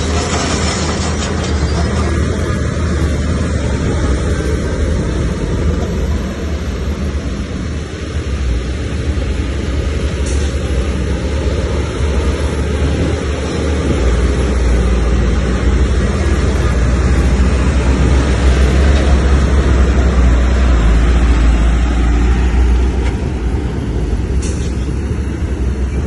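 Bulldozer's diesel engine running steadily with a deep drone. It grows louder about halfway through and eases off again near the end.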